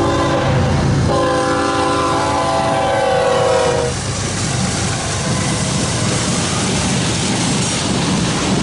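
BNSF freight diesel locomotive's multi-note air horn sounding a chord: one blast ends just under a second in, then a longer blast runs for about three seconds. After that comes the steady rumble of the diesel engines and steel wheels as the freight train rolls past.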